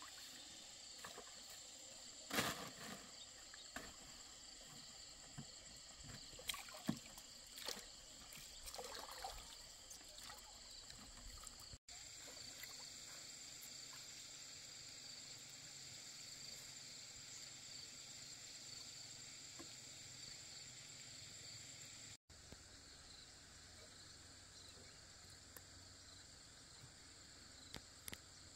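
Faint water sounds around a small bamboo fishing boat: a few sharp knocks and splashes in the first ten seconds as a fishing net is handled aboard, then water trickling off a net hauled up out of the lake, over a steady faint high hiss.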